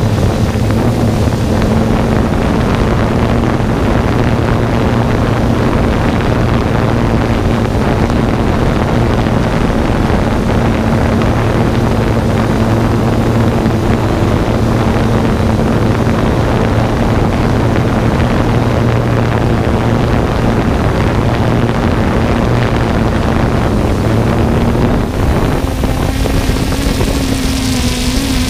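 3DR Solo quadcopter's motors and propellers buzzing steadily in flight, heard from its own onboard camera, with wind rushing over the microphone. The pitch of the buzz rises slightly near the end.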